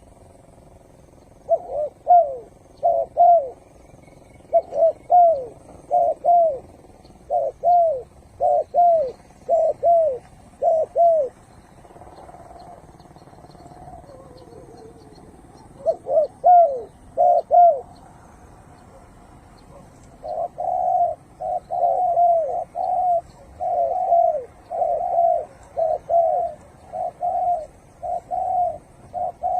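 Spotted dove cooing: short falling coos delivered in phrases of two or three. There is a pause a little before the middle, then a faster, denser run of coos near the end.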